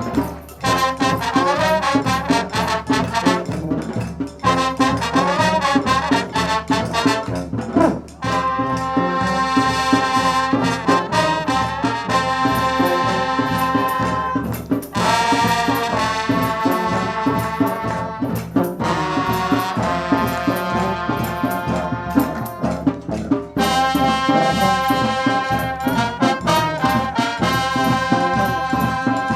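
Brass instruments playing long held notes over rapid, continuous drumming and banging: noise-demo music.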